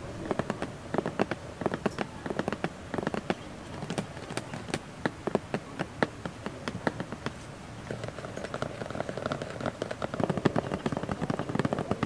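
Fingers tapping and handling a taped cardboard box, making many irregular sharp taps. From about eight seconds in, the tapping gets denser and mixes with scratching on the cardboard.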